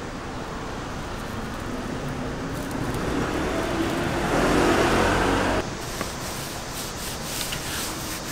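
Dry spice rub poured in a steady stream onto whole raw chickens in a steel tray, growing louder and then cutting off suddenly a little past halfway. Afterwards, quieter rubbing as gloved hands work the seasoning into the chicken skin.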